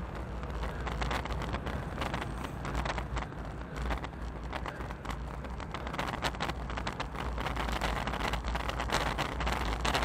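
Wind buffeting the microphone of a bicycle-mounted action camera while riding, over a steady low rumble of road and traffic noise.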